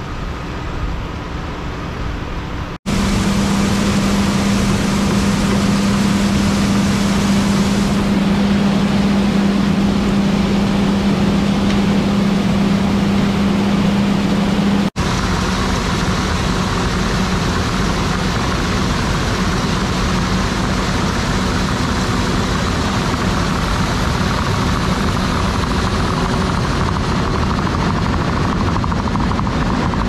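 A John Deere combine harvester and tractor running steadily, as engine and machinery noise. The sound changes abruptly twice, about 3 and 15 seconds in, and a strong steady hum dominates between those points.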